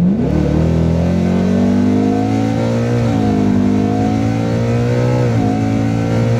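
Whipple-supercharged 5.0 Coyote V8 of a 2018 Mustang GT at wide open throttle, heard from inside the cabin. The engine revs climb steadily, fall back at upshifts of the 10-speed automatic about three and five and a half seconds in, and fall again near the end. The tune behind the pull retards spark to about 4 degrees mid-run, leaving the car with no power through that range.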